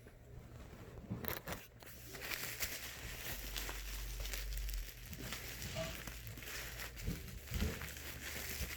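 Packaging being unwrapped and pulled apart by hand: continuous crinkling and rustling with sharper crackles and tears, getting louder after about two seconds.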